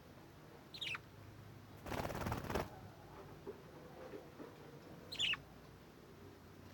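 Budgerigars: a short chirp falling in pitch, then a brief rapid burst of wing flapping about two seconds in, and another falling chirp about five seconds in.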